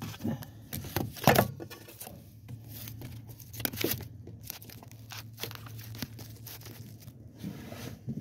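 Electric drill boring a hole through an oiled steel panel: a steady low hum with many short sharp clicks and scrapes as the bit cuts, easing off near the end.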